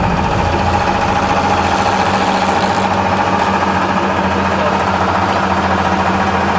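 Fishing boat's engine running steadily, an even drone with a constant low hum.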